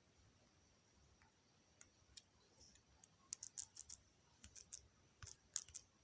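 A run of faint, quick clicks and taps, bunched into two flurries in the second half, typical of fingers tapping on a phone's touchscreen while editing.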